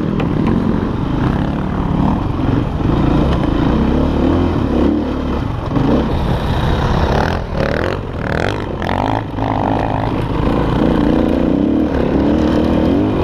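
KTM enduro dirt bike's engine running hard under load on a rough trail, its revs rising and falling as the rider works the throttle, with a rougher, choppier stretch about seven to nine seconds in.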